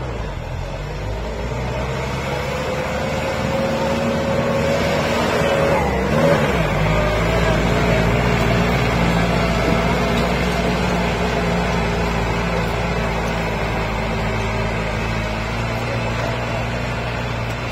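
Tumosan 8095 tractor's diesel engine working under load while it pulls a disc harrow through ploughed soil. Its note sags briefly about six seconds in, then holds steady.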